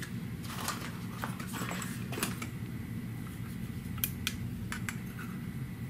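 Small clicks and taps of steel shears and hand tools being handled and set down on a workbench, a few separate ticks with the sharpest about four seconds in, over a steady low hum.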